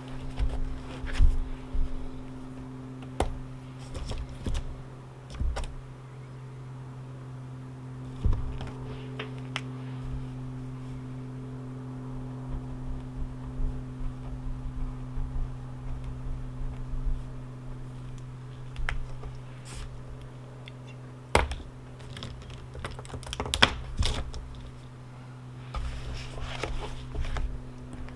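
Irregular taps and clicks of desk work over a steady low mechanical hum, with a few louder knocks, one about 21 seconds in.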